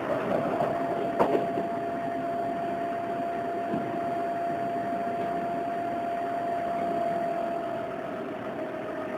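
Odakyu 8000 series electric train running, heard from inside the car: a steady whine holds one pitch over the rolling noise, with a couple of sharp clicks from the rails about a second in.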